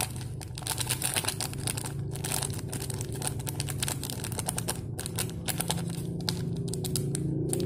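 Foil seasoning sachet crinkling and rustling as it is shaken and squeezed over a plate of instant fried noodles, over a low steady hum.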